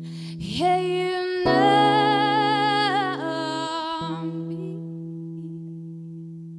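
Live solo performance: a woman's voice sings a long held note with vibrato over a ringing acoustic guitar chord. The voice stops about four seconds in, and the guitar chord rings on, slowly fading.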